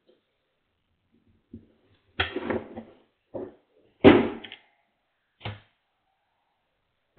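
A string of knocks and thumps from objects being handled and set down, the loudest a sharp bang about four seconds in.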